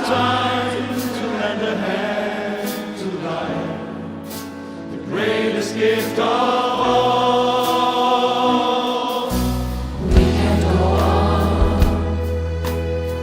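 Choral music: a choir singing sustained notes over a steady accompaniment, with a deep bass line coming in about nine seconds in.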